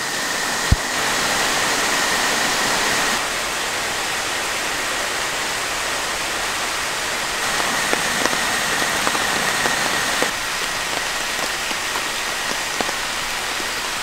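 Torrential rain pouring steadily on the rainforest, a dense even hiss of drops, with a single sharp click about a second in.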